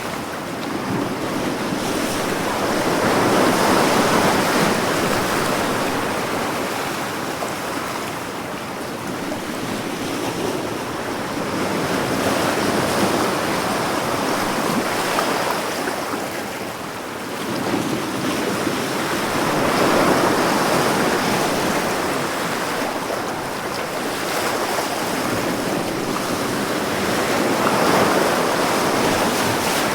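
Big ocean waves breaking on the shore, the surf swelling and easing in slow surges roughly every eight seconds.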